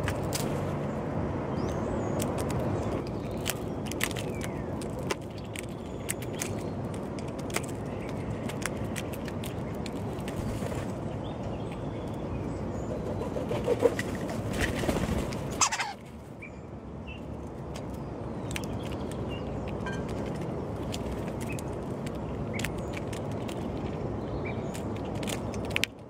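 Starlings and a jackdaw pecking mealworms on a concrete windowsill: scattered sharp taps and clicks, with a louder flurry of wing flaps about fourteen seconds in as a woodpigeon flies in. A steady low rumble lies underneath until about sixteen seconds in, then drops away.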